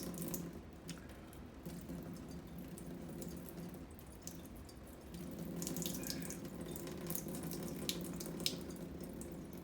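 Water being poured slowly off a cup into a kitchen sink, trickling and splashing in scattered drips. The flow grows fuller about halfway through.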